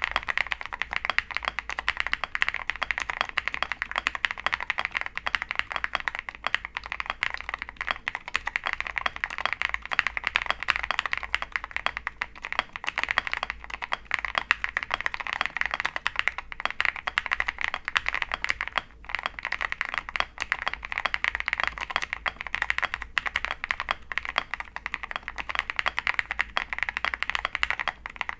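Steady, fast typing on a custom SE Jelly Epoch mechanical keyboard. It has lubed Konpeitou switches, a polycarbonate plate, full foam and MT3 PBT keycaps. The keystrokes come as dense, continuous clacks, with a brief pause about two-thirds of the way through.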